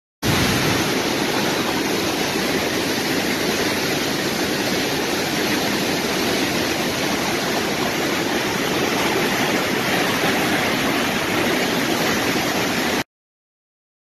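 Swollen brown floodwater rushing in a torrent: a steady, loud rush of churning water that cuts off abruptly near the end.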